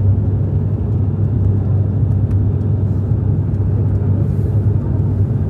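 Steady drone of an airliner's engines heard inside the passenger cabin in flight, with a strong low hum.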